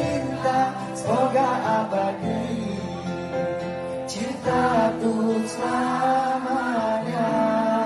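Live band music with a sung melody over guitar and other instruments, carried over a stage sound system.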